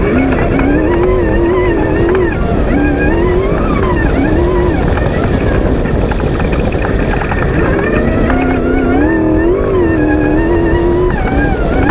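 V8 off-road race buggy engine under hard driving, its note repeatedly rising and falling with the throttle and gear changes, over a constant low rumble from the rough sand track.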